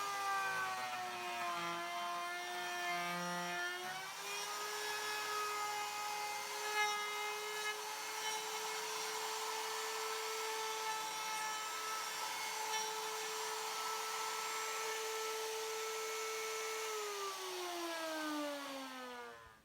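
Router motor on a Pantorouter cutting tenons in pine: a steady high whine that sags slightly under load in the first few seconds. Near the end it is switched off and the pitch falls as it spins down.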